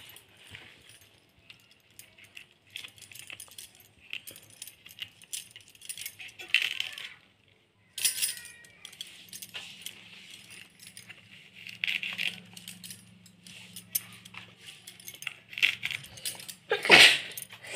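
Soft rustling and small clicks of fresh pumpkin flowers being cleaned by hand, with glass bangles clinking on the wrist. A louder brief burst comes about a second before the end.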